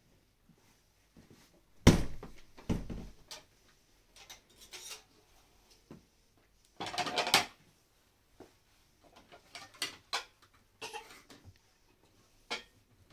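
Dishes and a serving tray being set down and handled on a floor cloth: two heavy thumps about two seconds in, a short clattering burst about seven seconds in, and scattered clinks and taps of plates and a plastic bowl.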